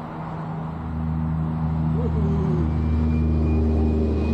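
Car engine idling with a steady low hum, getting louder about a second in.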